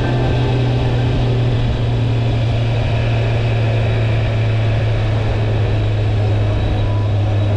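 Motorcycle engine running at a steady speed on the move: a constant low hum under an even rushing noise.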